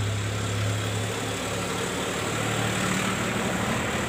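A steady low mechanical hum with an even rushing noise over it. The hum's low band eases about a second and a half in, while a higher hum line grows stronger toward the end.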